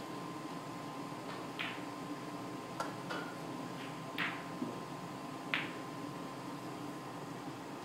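Snooker cue tip striking the cue ball with a single sharp click about three seconds in, and a fainter click just after. A few short, soft hissing sounds are spread through the quiet room.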